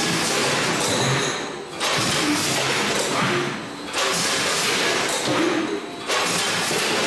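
Net-bag clipping and weighing machine running through its packing cycle, with a loud rushing burst about every two seconds, each lasting about a second and a half.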